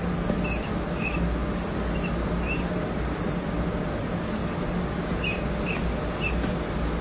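Steady room hum and hiss, with about seven faint, short, high chirps in two clusters, early and again after five seconds.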